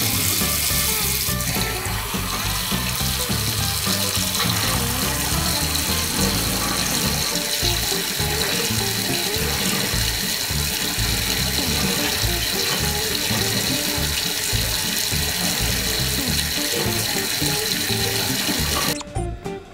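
Water from a mixer tap running in a steady stream into a ceramic washbasin, with background music over it. Both cut off abruptly near the end.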